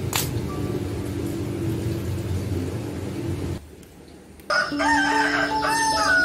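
A rooster crows once, starting about three-quarters of the way in: a long call that rises and then falls in pitch. Before it, a low steady background cuts off abruptly.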